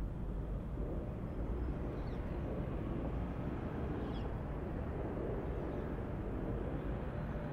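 Outdoor street ambience: a steady low rumble of distant traffic, with two faint short high chirps about two and four seconds in.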